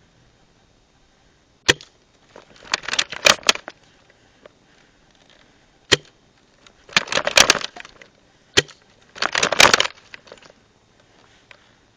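Airsoft gun fired three times. Each time there is a single sharp snap, then about a second later a burst of rattling, crackling clatter lasting about a second.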